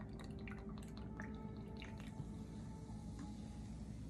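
Carbonated water being poured from a plastic bottle into a glass mug of passion fruit syrup, faintly fizzing with many small ticks and pops.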